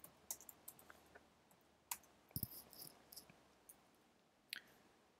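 Near silence with a handful of faint computer keyboard keystrokes scattered irregularly through it, one slightly heavier tap about two and a half seconds in.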